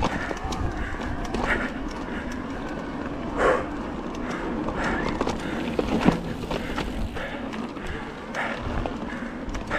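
Electric mountain bike rolling over a dirt trail and onto gravel: tyres crunching, with frequent rattling clicks and knocks from the bike over the rough ground. A low rumble from wind on the microphone runs underneath.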